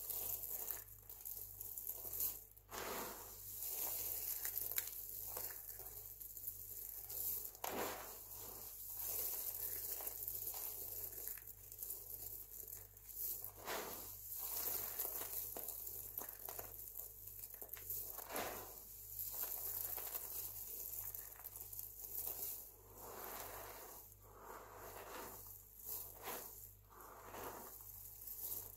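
Hands scooping, sifting and rubbing through a pile of dry, crispy crushed soap flakes: crisp rustling and pattering of the small soap pieces, swelling and fading with each handful.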